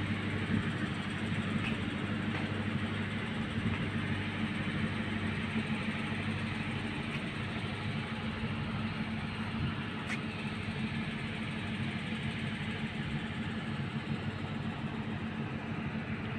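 Steady drone of a car's engine and tyres while driving, with a constant low hum.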